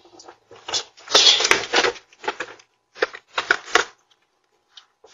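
A stroller being wheeled out through a doorway and down a step, its frame and wheels rattling and scraping in several irregular bursts, the longest and loudest about a second in.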